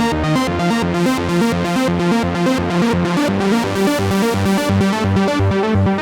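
Electronic synthesizer music: a fast, even run of short repeating synth notes over a low bass pulse, growing brighter in the middle.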